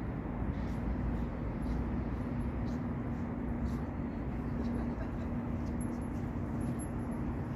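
Steady low outdoor background rumble, with a low steady hum joining about two seconds in and holding to near the end.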